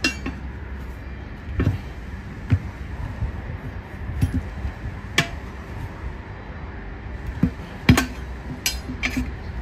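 Steel tire iron clinking and knocking against a steel wheel rim while a tire bead is pried over it by hand: scattered sharp metallic strikes, a few seconds apart, over a low steady rumble.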